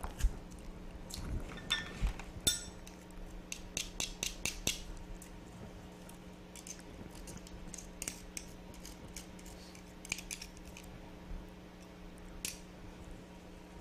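Stainless-steel garlic press squeezing garlic cloves, with scattered metal clicks and short scrapes as a knife clears the pressed garlic from the press over a ceramic dish. A faint steady hum runs underneath.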